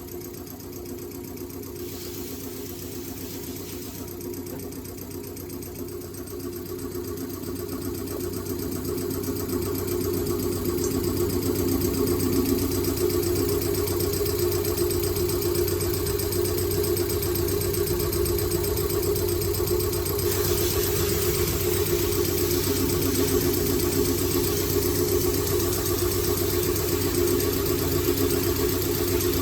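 Isuzu Forward FTR34 truck's diesel engine idling steadily. It grows louder over the first ten seconds or so, then holds level.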